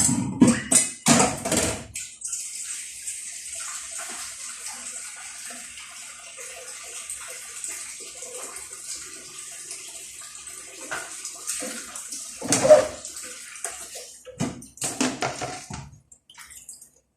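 Carrots going into a hot frying pan with a few clatters, then steady sizzling of frying, with louder clatters twice near the end.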